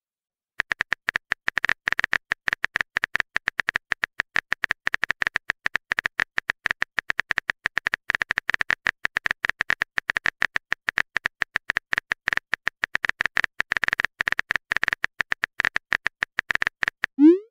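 Rapid, steady keyboard-tap clicks of a texting app's typing sound effect, starting about half a second in. Near the end a short, loud rising pop comes as the message is sent.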